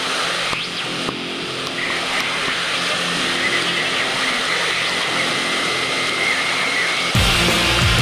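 White-water rapids rushing and churning loudly around swimmers in the current. Near the end, loud rock music cuts in abruptly.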